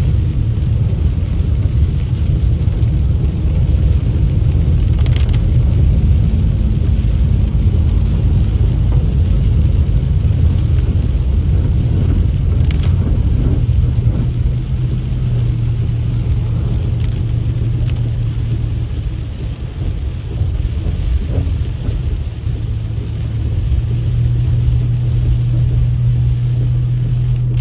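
Inside a car driving on a rain-soaked road: a steady low drone of engine and tyres on wet pavement with rain hiss over it, easing a little about twenty seconds in.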